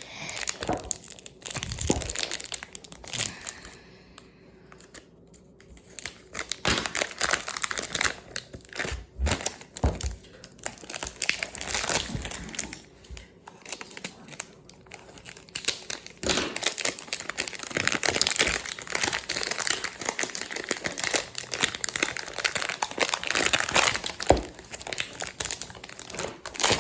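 Packaging of a Rubik's cube box being handled and unwrapped by hand: irregular crinkling and rustling with small clicks and some tearing. It eases off about four seconds in and is busiest in the second half.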